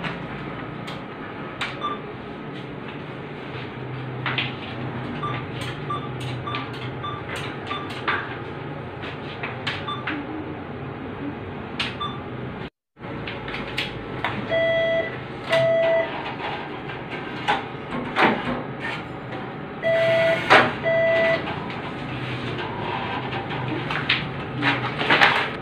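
ATM beeping as its keys are pressed during a cash withdrawal. A run of short, evenly spaced high key-press beeps comes a few seconds in. Later come pairs of louder, longer, lower beeps from the machine, over a steady low hum and scattered clicks.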